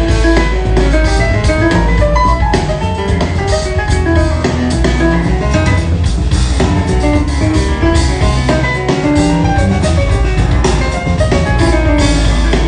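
Jazz piano trio playing: fast piano runs over a drum kit and a strong bass line.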